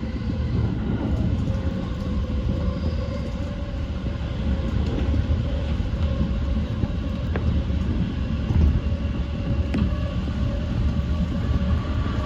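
E235 series 1000 electric multiple unit running along the line, a steady low rumble of wheels on rail with a faint steady tone above it and a few sharp clicks later on.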